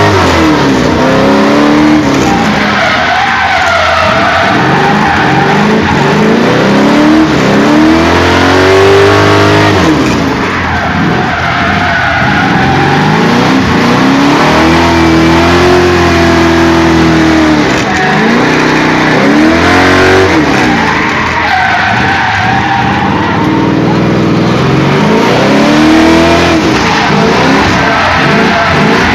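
Car engine heard on board, its revs climbing and dropping again and again as it accelerates through the gears and slows for corners, with tyres squealing at several points.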